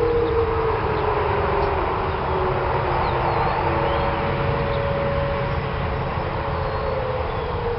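Whelen outdoor tornado warning siren winding down after its test, its chord of tones slowly falling in pitch, over a low outdoor rumble.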